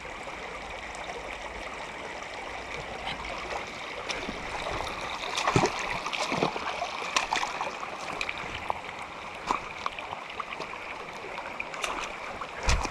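Mountain trout stream running over rocks, a steady rush of water. Scattered sharp clicks and knocks sound over it from about four seconds in, the loudest near the end.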